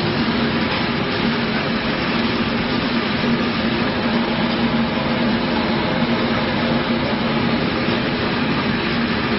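Bottle shrink-wrapping machine running: a steady mechanical whir with a constant low hum.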